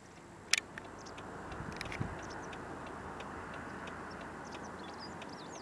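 Outdoor ambience at a flooded riverside: a steady hiss with many faint, short high chirps. A sharp click about half a second in is the loudest sound, with lighter clicks around two seconds in.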